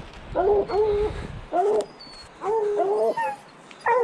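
Hounds baying at a mountain lion they have treed: a string of long, drawn-out bays, two voices overlapping at times. Wind rumbles on the microphone for the first second and a half.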